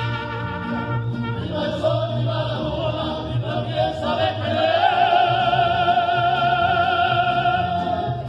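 Mariachi singing: a male ranchera singer with a mariachi band. Violins play at the start, then from about four seconds in the singer holds one long, loud note with vibrato.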